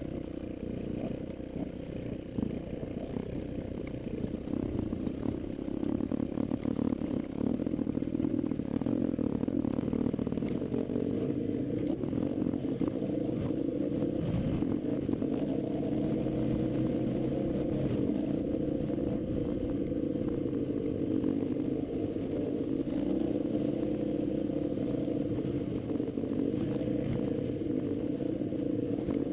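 Enduro dirt bike engine running and revving on rough ground, heard from a camera mounted on the bike, its note rising and falling with the throttle over a constant rattle of the chassis. It gets louder about six seconds in.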